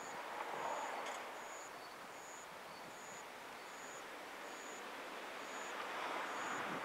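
Outdoor ambience: a soft rushing hiss that swells briefly twice, with a short high-pitched chirp repeating evenly about every three-quarters of a second.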